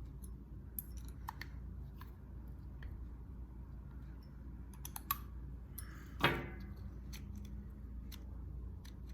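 Scattered small clicks and ticks of a hex driver and metal parts as the RC car's motor mount screws are tightened, over a steady low hum. About six seconds in, one brief louder sound falls quickly in pitch.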